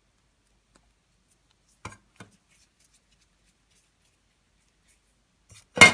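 Near silence while dough is shaped by hand in an enamel bowl, broken by two faint knocks about two seconds in and one loud, sharp knock near the end.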